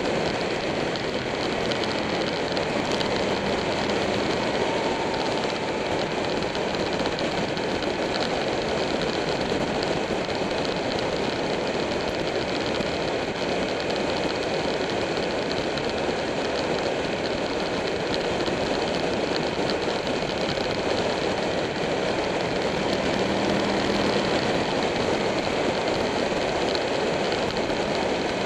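Buell 1125R V-twin motorcycle cruising at a steady speed: the engine's drone mixed with a constant rush of wind and road noise over the bike-mounted camera, with no gear changes or revving.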